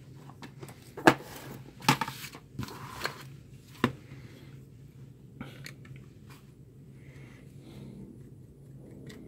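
Sharp plastic knocks and clatter as a handheld plastic-cased voltage tester is picked up, turned over and set down, with its test leads shifting. There are about four knocks in the first four seconds, the loudest about a second in, followed by quieter handling sounds.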